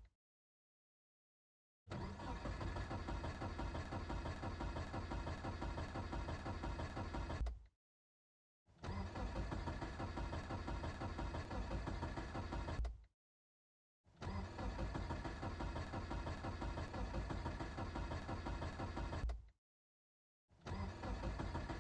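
Car starter cranking a cold engine that won't catch, with three cranking attempts of about five seconds each and a fourth beginning near the end, separated by about a second of silence.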